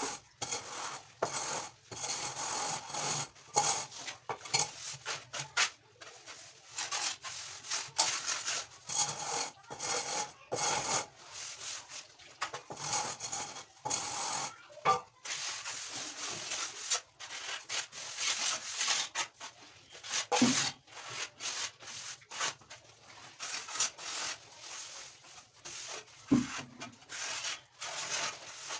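Sandpaper being rubbed back and forth over a wooden frame by hand to level it, in a long run of irregular rasping strokes. Two brief knocks come later on.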